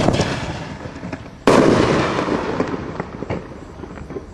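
Winda Panic Attack (P8016) aerial firework shells bursting twice, once at the start and again about a second and a half in. Each break is followed by dense crackling that fades away, and a few last scattered pops come near the end.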